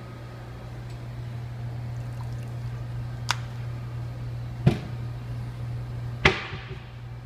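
Espresso machine humming steadily, with three sharp knocks about a second and a half apart, the last and loudest trailing off in a brief hiss.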